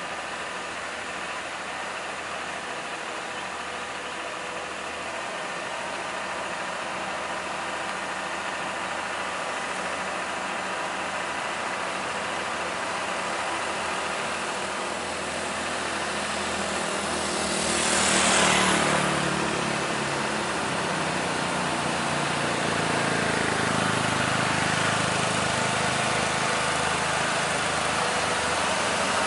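Mitsubishi Fuso 6x4 crane truck's diesel engine running at low speed, growing steadily louder as the truck approaches. Just past halfway a motorcycle passes close by with a brief rush, the loudest moment.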